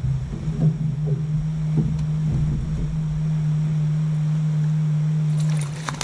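A boat motor hums steadily and stops near the end, while a hooked fish thrashes and splashes at the surface beside the boat.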